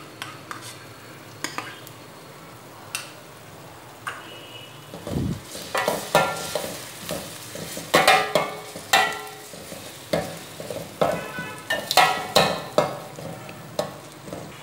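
Shallots and ground ginger-garlic paste frying in a stainless steel pan with a faint sizzle. From about six seconds in, a spatula stirs and scrapes against the steel in repeated ringing strokes, one or two a second.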